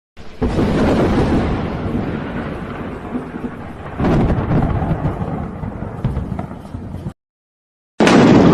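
Thunder rumbling. A rolling rumble starts about a quarter second in and swells into a second, louder peal about four seconds in. It cuts off abruptly near seven seconds. After a second of dead silence, another sharp, loud thunderclap begins near the end.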